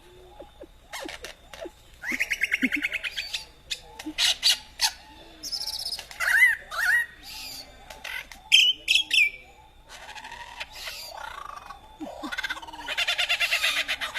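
A lyrebird singing a varied mimicry sequence: rapid rattling trills, sharp clicks and short rising whistles, ending in a long fast trill.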